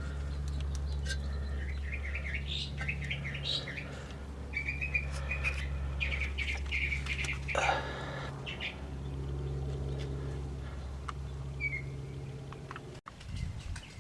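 Small birds chirping and twittering in short runs over a steady low hum; the hum cuts off sharply about thirteen seconds in.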